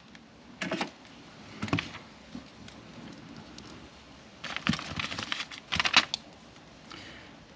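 Clicks and clatters of a wire crimper-stripper and small wiring parts being handled and set down on a workbench, in a few short bursts, busiest in the second half.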